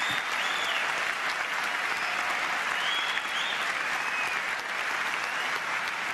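Large audience applauding steadily, with a few short whistles over the clapping.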